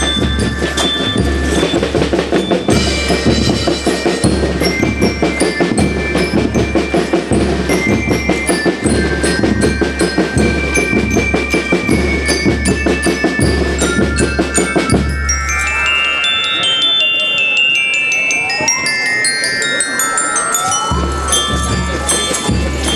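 School rhythm band of drums and bell lyres playing a march beat, the bell lyres carrying a bright, ringing melody over bass drum and snares. About fifteen seconds in the drums drop out and the bell lyres play alone in quick scale runs up and down, then the drums come back in near the end.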